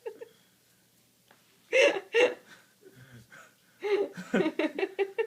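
A person laughing in short bursts: two sharp laughs about two seconds in, then a quick run of chuckling near the end.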